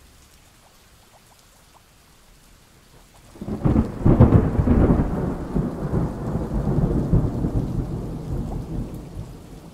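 Thunderstorm: soft rain, then a thunderclap about three seconds in that rolls on and slowly dies away under the rain.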